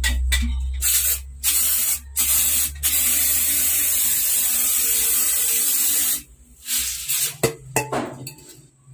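Aerosol insecticide can spraying with a loud hiss, in a few short bursts and then one long spray of about three seconds that stops about six seconds in. A few knocks follow near the end.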